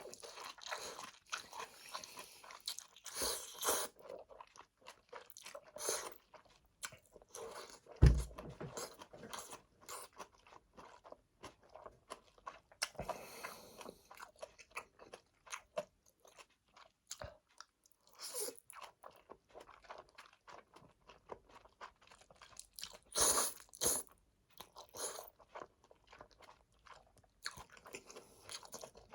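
Close-miked ASMR eating sounds of a Chapagetti noodle meal: steady wet chewing with louder crunchy bites every few seconds. A single sharp thump stands out about eight seconds in.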